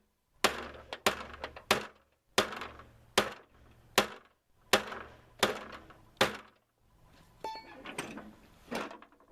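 A heavy homemade hammer, a 4-pound weight welded to a pipe, striking a riding-mower deck: about nine hard blows a little under a second apart, each ringing briefly, then a short pause and a few lighter strikes near the end. The blows are beating out a dent in the deck that was jamming the blade.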